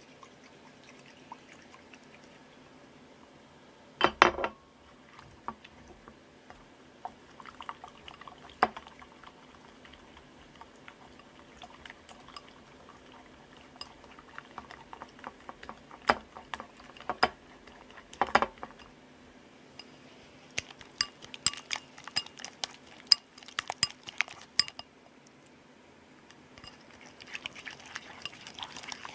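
Clinks and knocks of a bowl and utensils being handled, the loudest a sharp knock about four seconds in, with a quick run of clinks a little past twenty seconds. Near the end, a stick stirs a white liquid mixture in a bowl, scraping and sloshing.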